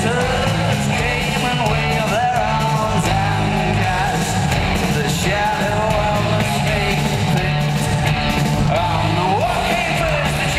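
Live rock band playing, a lead voice singing over electric guitars and bass.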